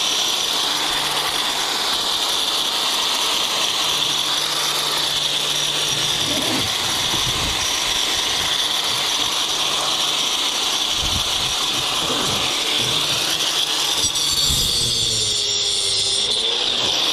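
Hand tools working on scrap metal, with scattered knocks and rattles, over a steady hiss.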